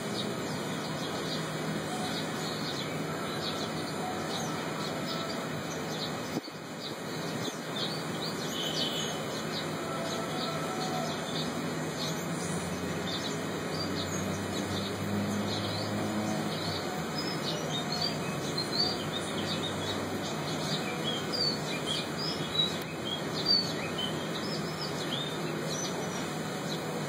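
Small birds chirping over and over, short high chirps and quick whistles over a steady background hiss, with a low hum for several seconds in the middle.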